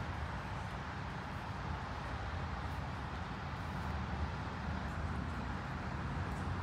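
Steady outdoor background noise with a low rumble of distant traffic.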